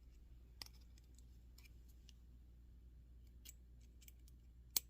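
Faint, scattered small clicks of tweezers and small steel ratchet parts being handled, with one sharper click near the end.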